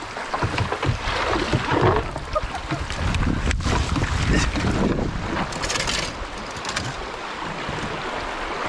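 Rushing river water and paddle splashes as a canoe runs a stretch of fast, shallow current. Pine branches brush and scrape over the canoe and camera, with a sharp knock about three and a half seconds in. Wind buffets the microphone.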